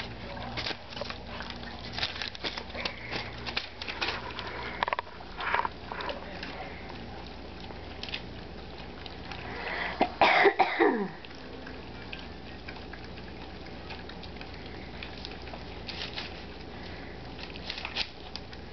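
Old English Sheepdog puppies eating soaked kibble from a shared metal bowl: a busy run of small clicks, smacks and lapping. About ten seconds in there is one loud sound that slides sharply down in pitch, and the clicking is sparser after it.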